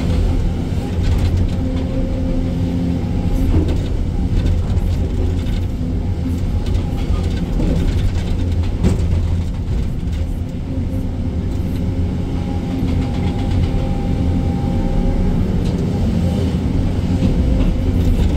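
Excavator's heavy diesel engine running steadily with a deep hum, with a sharp knock about nine seconds in.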